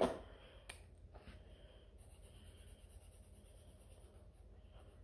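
Faint handling of a paper worksheet on a table, with a single soft tap under a second in, over a low steady room hum.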